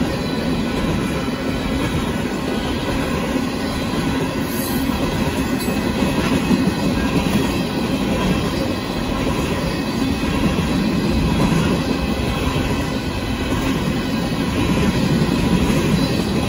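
Union Pacific freight train of tank cars passing at speed, with steady wheel-on-rail noise from the cars rolling by.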